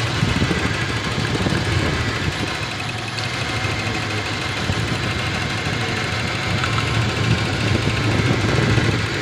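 Toyota 7K four-cylinder petrol engine idling unevenly while it misfires. The rough idle comes from a failing spark plug, which is being traced by pulling the plug wires one cylinder at a time.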